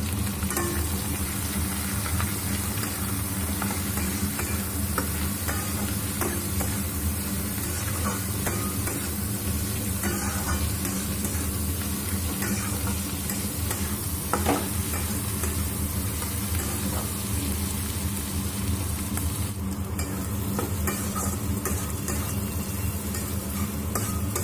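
Onion, green capsicum and garlic paste sizzling in hot oil in a metal kadai, stirred with a spatula that scrapes and clicks against the pan many times throughout.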